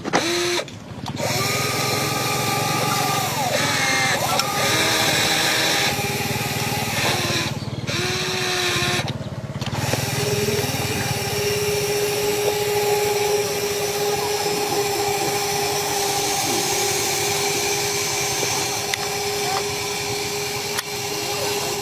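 Small electric motors of a radio-controlled toy excavator whining as it drives its tracks and works its arm, several whines that glide up and down as the motors start and stop, settling into one steady whine in the second half.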